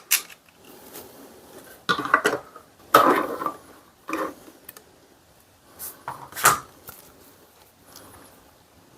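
A handful of separate knocks and clatters of hard objects being picked up and set down on a work surface, the loudest about three seconds in and about six and a half seconds in.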